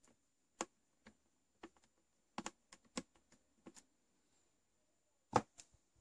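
Faint, irregular clicks and taps of a screwdriver working a screw loose from the base of a drip coffee maker, with a louder tap a little after five seconds.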